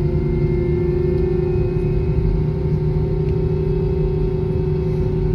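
Airbus A321-231's IAE V2500 turbofan engines heard from inside the cabin while taxiing: a steady drone with a strong hum that creeps slightly up in pitch.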